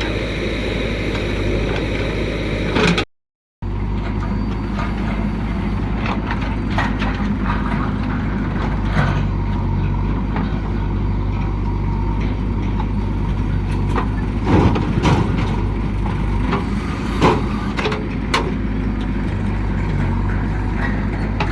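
Diesel engine of a JCB backhoe loader running steadily with a low drone while loading soil, with a few sharp knocks and clanks later on. The sound drops out completely for about half a second about three seconds in.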